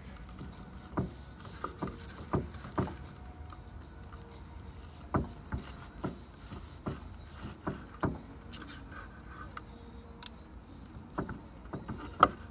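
A long knife slicing a ribeye steak held with metal tongs, making irregular sharp knocks and taps as the blade and tongs hit a wooden cutting board. The loudest knock comes near the end.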